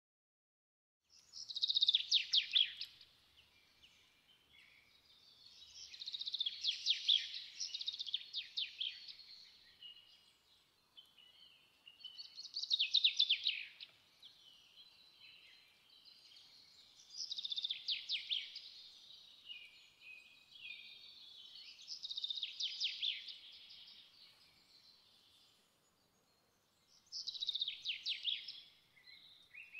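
Bird song: a small songbird repeating rapid, high trilled phrases, each lasting a second or two, about every five seconds.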